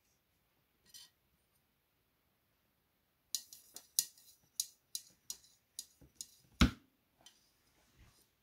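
Art supplies being handled on a desk: a quick run of sharp clicks and light taps, a few each second, with one heavier knock near the end of the run.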